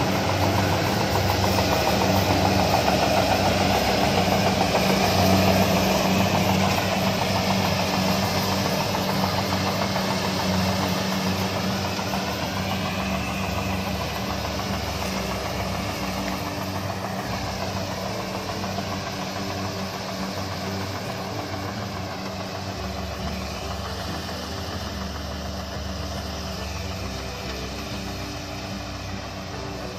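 Small tracked rice combine harvester running as it cuts through standing rice: a steady engine drone with machinery noise, fading gradually as the machine moves away.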